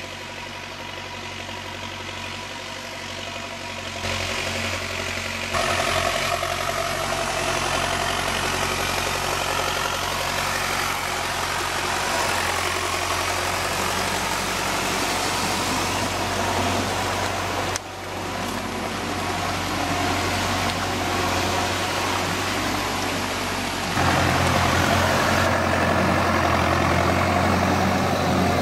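Diesel farm tractor engines running steadily under load while big lugged tyres churn and splash through deep mud and water. The sound changes abruptly several times where one clip cuts to the next.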